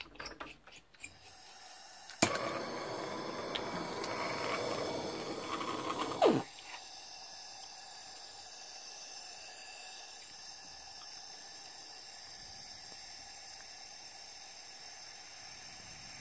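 Gas torch flame for glass sealing: a sharp pop about two seconds in, then four seconds of loud hissing that stops with a click, followed by a quieter steady hiss.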